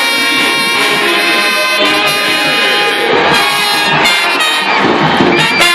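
Live brass band of trumpets, trombones and sousaphones playing a loud, steady tune.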